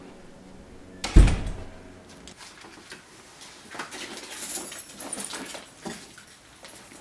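A door bangs shut about a second in, followed by scattered light knocks and rustling.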